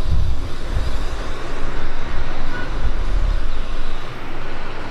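Loud outdoor rumble, heaviest in the low end and rising and falling unevenly, over a steady background hiss.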